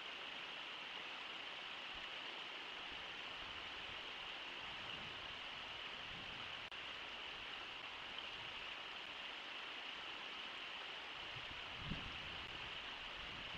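Brooks Falls, the Brooks River pouring over the falls, making a steady rushing wash of water noise. A brief low thump comes near the end.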